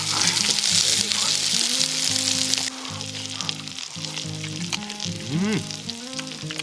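Lamb meat sausage and blood sausage sizzling as they fry in oil in a pan, a loud steady hiss that drops suddenly to a quieter sizzle about two and a half seconds in. Background music with held notes plays underneath.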